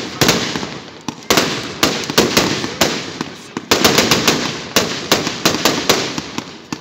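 Ruggieri professional fireworks display: aerial shells bursting in quick, uneven volleys of sharp bangs, several a second, each volley trailing off in echo.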